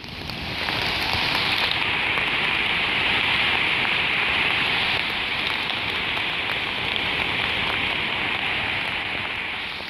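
Steady rushing hiss of water, like heavy rain or falling water, fading in over the first second and fading out near the end.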